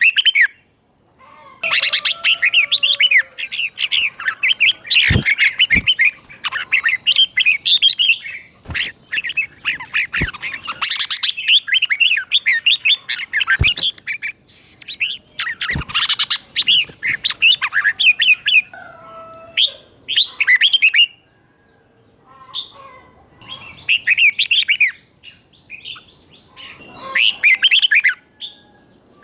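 Red-whiskered bulbul singing in long, fast chattering bouts, with phrases given in doubled pairs, the 'double' (เบิ้ล) style that keepers prize in a teacher bird. A few sharp clicks come in the first half.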